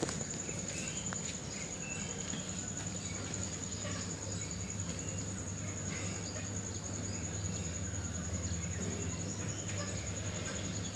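A steady high-pitched insect trill over a low steady hum, with faint scattered clicks.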